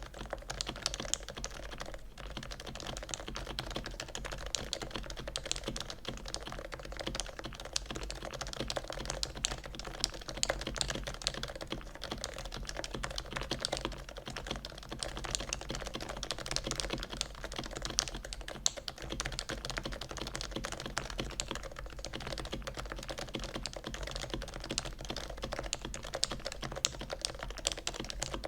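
Fast, continuous typing on a Noxary XRF custom keyboard with lubed Topre electro-capacitive switches and Topre keycaps: a dense run of quick, irregular keystrokes with a steady low hum underneath.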